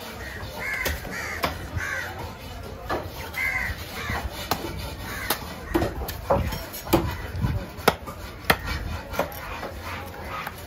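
Crows cawing several times in the first few seconds, over a run of sharp knocks from a cleaver chopping fish on a wooden stump block. The chops come loudest in the second half.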